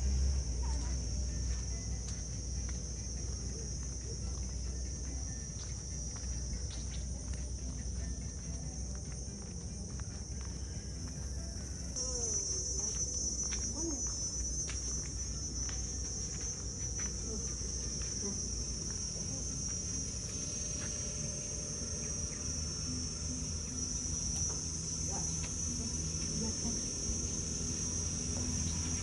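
A steady, high-pitched chorus of insects shrilling, growing a little louder about twelve seconds in, over a low background hum.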